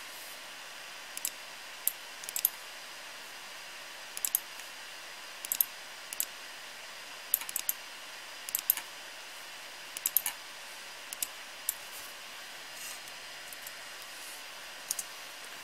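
Computer mouse buttons clicking: about a dozen sharp clicks spread unevenly, many in quick pairs, while text is selected, copied and pasted through right-click menus. A steady faint hiss lies underneath.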